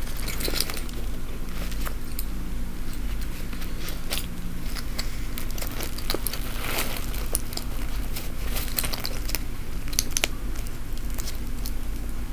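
Rustling of a fabric backpack being handled, with scattered small clicks from metal button pins and their clasps, over a steady low hum.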